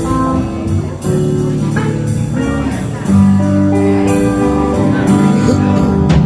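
A live band playing the instrumental intro of a slow blues ballad, with guitar to the fore over a steady beat. The band comes in louder about three seconds in.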